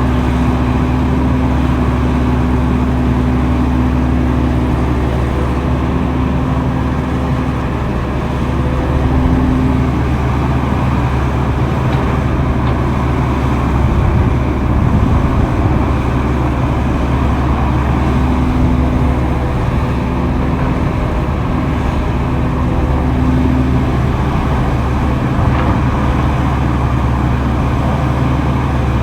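Heavy diesel earthmoving machinery running steadily at a construction site, a low engine hum with a higher tone that comes and goes in stretches.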